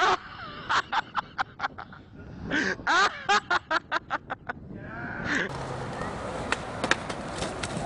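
A person laughing hard in two runs of short, rapid bursts, a cackling, quack-like laugh. About five seconds in it gives way to a steady rolling noise with a few sharp clicks from a skateboard on concrete.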